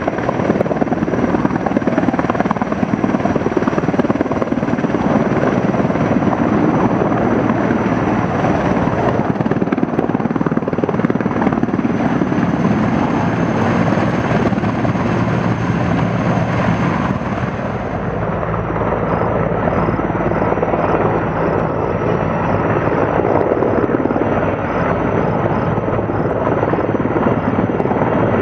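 Sikorsky S-64 Skycrane heavy-lift helicopter hovering low over water with its snorkel down, its twin turboshaft engines and six-blade main rotor running steadily, a thin high turbine whine over the rotor noise. About two-thirds of the way through, the whine drops slightly in pitch and the low rumble grows.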